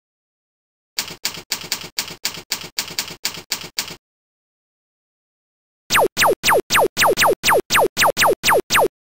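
Typewriter-key sound effect clacking about four times a second for three seconds, then after a two-second pause a rapid run of electronic zaps, each a tone falling steeply from high to low, about four a second.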